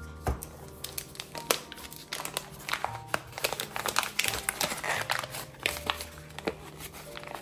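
Foil wrapper of a block of butter crinkling and crackling as it is unfolded and peeled open by hand, in a dense run of irregular crackles.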